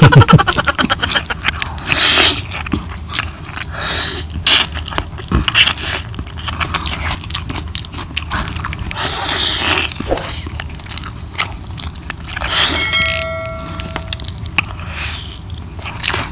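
Close-miked eating sounds: a man chewing chicken curry and rice, with many wet mouth clicks and smacks. A short high tone sounds once late on.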